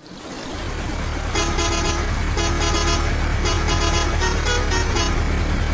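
A vehicle engine running with a steady low rumble. From about a second and a half in until about five seconds, a run of short pitched horn toots sounds in quick groups over it.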